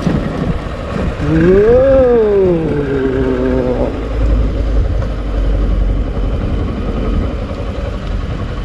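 Motorcycle engine revving up about a second in, then easing back down and running steadily for a couple of seconds, over a steady low rumble.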